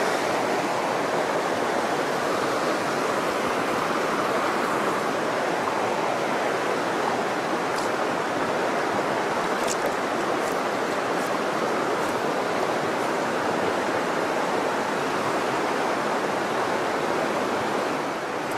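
Steady rush of a clear mountain river running over rocks and riffles.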